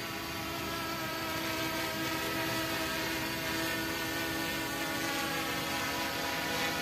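Quadcopter drone in flight: the steady buzzing hum of its 930 kV brushless motors spinning 1045 propellers, several close pitches wavering slightly, growing a little louder over the first few seconds.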